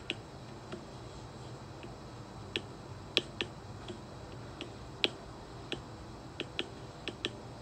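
A stylus tip tapping and clicking irregularly on an iPad's glass screen during handwriting, about fifteen sharp ticks in all, the loudest about three and five seconds in, over a faint steady hum.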